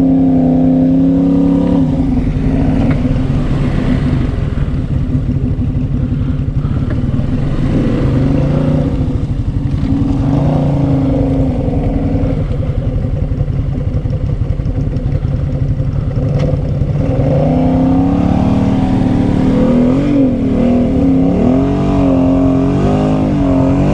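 Can-Am Outlander 700 ATV's single-cylinder engine running under load through deep mud ruts. The revs shift about two seconds in, then rise and fall repeatedly over the last several seconds as the throttle is worked.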